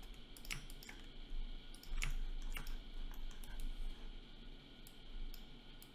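Scattered sharp clicks from a computer mouse in use, a few per second and unevenly spaced, over a faint low steady hum.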